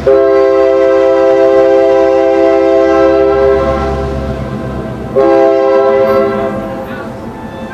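Horn of the locomotive leading a Norfolk Southern track geometry train, a multi-note air horn sounding one long blast and then, about five seconds in, a shorter blast that fades, over the low rumble of the approaching train.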